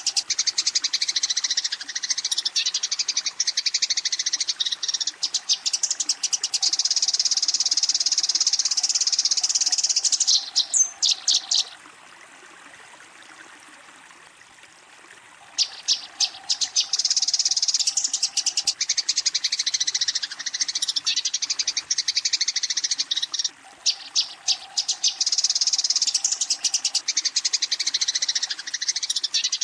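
Eurasian tree sparrow chattering: fast, continuous high chirps in long bouts, with a pause of about three seconds near the middle. This is the fighting call a sparrow gives to challenge a rival.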